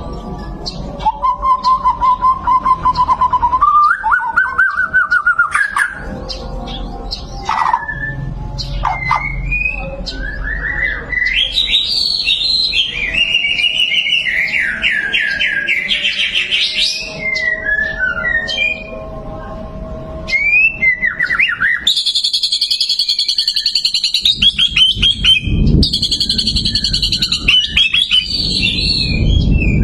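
White-rumped shama (murai batu) singing a long, varied song: clear whistled notes, then fast trills and chattering phrases that climb higher in pitch, with a short pause about two-thirds of the way through.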